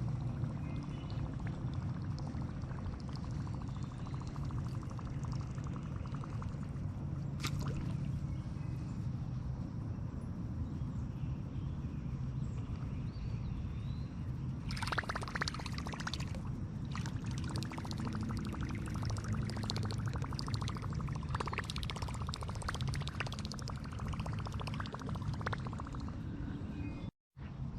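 Water slapping and sloshing around a small fishing boat, with a steady low rumble of wind on the microphone; about halfway through a longer stretch of splashing water begins.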